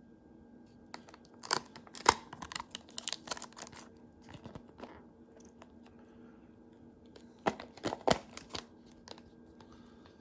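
Packaging being handled and opened: two spells of sharp crackles and clicks, the first about a second in and the second about two seconds before the end.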